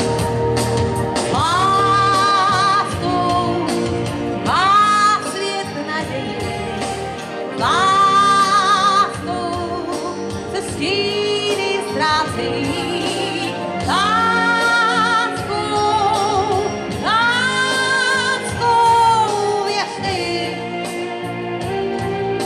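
A woman singing a slow song live into a microphone over backing music, with long held notes sung with vibrato.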